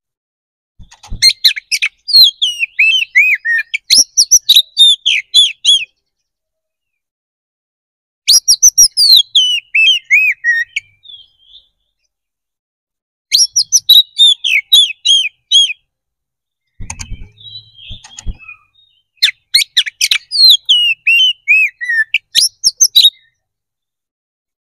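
Caged oriental magpie-robin (kacer) singing in loud, full-voiced fighting song: four bouts of quick whistled notes that slide down in pitch, each a few seconds long, with pauses between. A few soft knocks sound in the pause near the middle.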